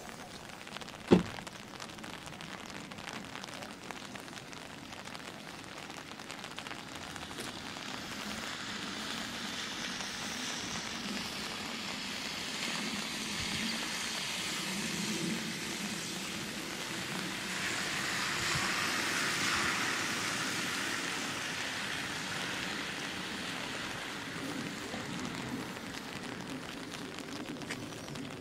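Rain on wet tarmac: an even hiss that grows louder toward the middle and then eases off, with one sharp knock about a second in.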